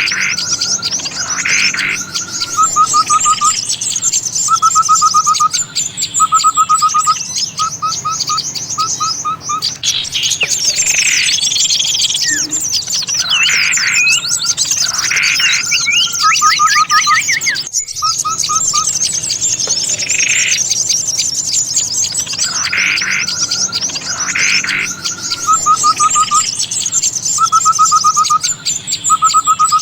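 Bird-lure recording of many small songbirds calling at once: a dense, continuous high twitter with groups of short repeated lower trills and falling calls. The pattern breaks off abruptly for a moment about two-thirds through and starts over, as a looped recording does.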